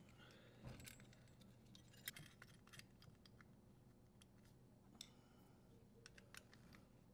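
Near silence with faint, scattered clicks and taps from wires and small metal parts being handled in a dishwasher's metal electrical terminal box; the sharpest click comes about two seconds in.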